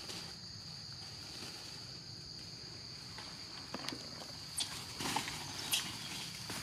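Steady insect chorus, a high even drone. A few brief rustles and clicks come in the second half.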